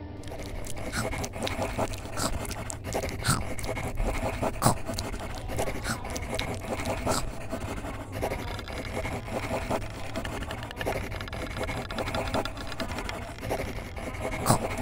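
Scraping and scratching noises with many irregular clicks and taps, busy and uneven throughout.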